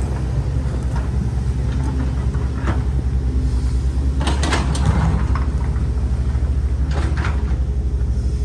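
Excavator's diesel engine running steadily, with a few short scraping squeals about four seconds in and again near seven seconds.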